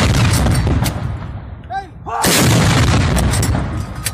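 Heavy gunfire, artillery-like: a loud blast about two seconds in that rumbles away over a second or more, with the tail of an earlier blast fading at the start.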